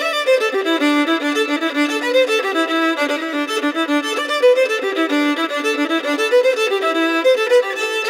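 Solo violin bowing a fast-moving melody, the notes changing several times a second, recorded close on a Lauten Audio LA-220 FET condenser microphone.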